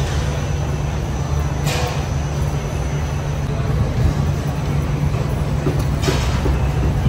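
Steady low mechanical drone with a hiss over it, with two short hissing sounds, one about two seconds in and one near the end.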